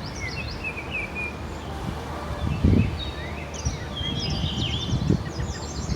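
Several birds chirping and singing, with a steady low rumble under them and a low muffled thump about two and a half seconds in.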